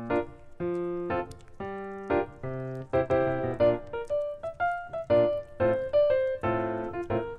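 Background music: a light piano-style keyboard tune of short separate notes, which moves faster about three seconds in.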